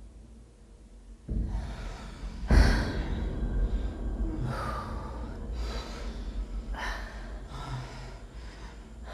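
Heavy, gasping breaths of a person out of breath, starting about a second in and coming roughly once a second.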